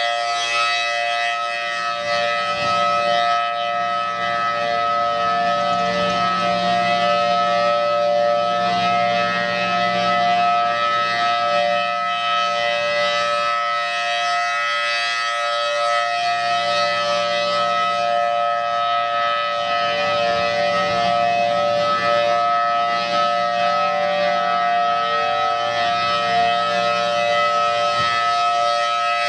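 Federal Signal Thunderbolt 1000T rotating mechanical outdoor warning siren sounding a steady alert tone on a test. The tone holds one pitch, and its loudness wavers slightly and slowly.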